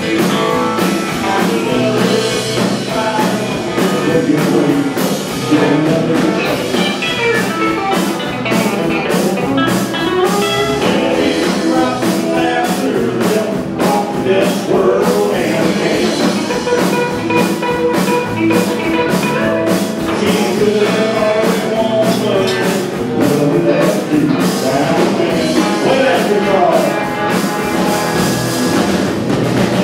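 Live band playing on electric guitars, electric bass guitar and drum kit, with a steady drum beat under sustained guitar lines.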